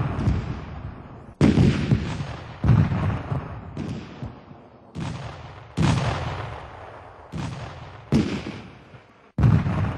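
A string of black-powder gunshots, about eight, coming roughly a second apart, each followed by a long fading rumble.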